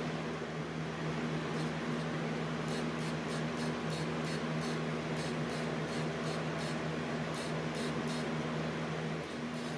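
Eastwood Dual-Voltage powder coating gun spraying powder: a steady rush of air over a constant low hum, with a run of faint, quick ticks in the middle.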